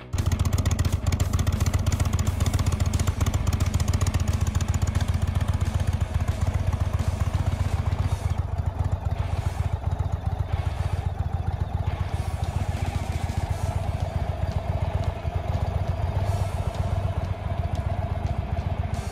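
Indian Thunder Stroke 116 air-cooled V-twin of a 2020 Indian Chieftain Darkhorse, idling steadily.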